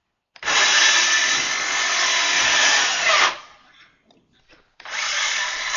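Power drill running in two long stretches, about three seconds and then again from about five seconds in, with a brief falling whine as the first run winds down.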